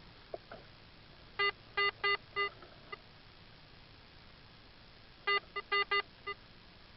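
Handheld metal-detector pinpointer probe beeping in two short bursts of four or five quick beeps, a few seconds apart, as it is swept over a metal target in loose dirt.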